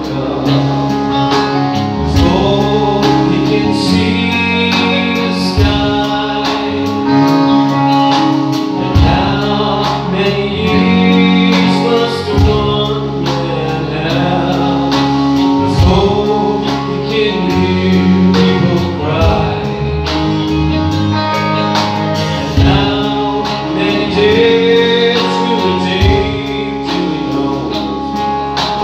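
Live band playing a song: a man singing lead into a microphone over keyboard, electric bass and a drum kit with a steady beat.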